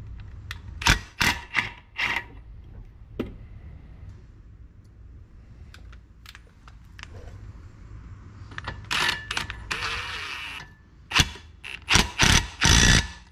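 Impact wrench on a boat propeller nut, run in short bursts: a few quick ones in the first two seconds, a longer run of nearly two seconds later, and four hard bursts near the end as the nut is driven down tight.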